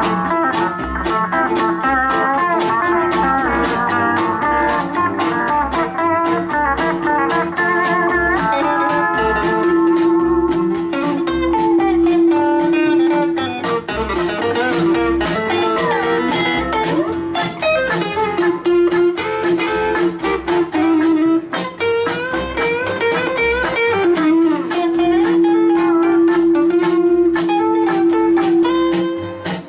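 Instrumental break of a honky-tonk country band: electric lead guitar and steel guitar play sliding, bending lines and long held notes over a steady upright bass beat and rhythm guitar.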